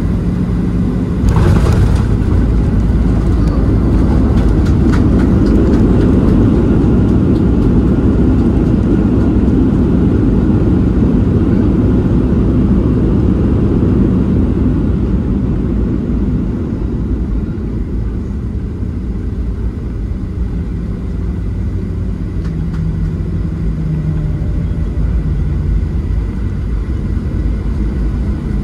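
Boeing 737-700's CFM56-7B jet engines running loud in reverse thrust during the landing rollout, heard from inside the cabin, with a brief sharp jolt about a second in. After about fifteen seconds the noise eases to a lower, steady rumble as the jet slows on the runway.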